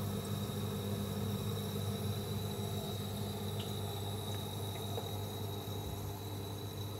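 Reef aquarium sump equipment running: a steady low electric hum from the pumps under a hiss of moving water and air, with a thin high whine above it. A few faint ticks come about halfway through.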